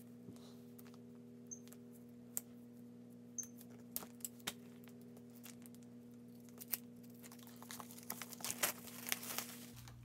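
A K-pop album's plastic wrapping being torn open and handled: scattered small crinkles and ticks, building into a denser run of crinkling near the end.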